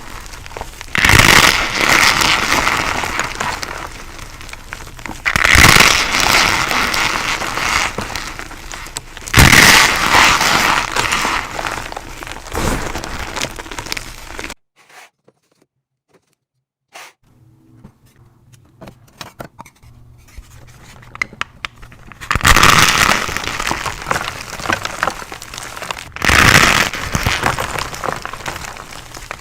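Thin slabs of chalk sandwiched with cornstarch being crushed. Each sharp snap trails off into crumbly crackling as the pieces break apart. There are about five crushes a few seconds apart, with a short silent gap and faint crumbling clicks near the middle.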